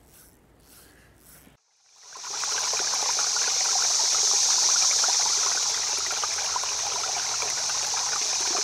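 Steady rush of flowing water, like a stream, fading in about two seconds in after a faint, quiet start.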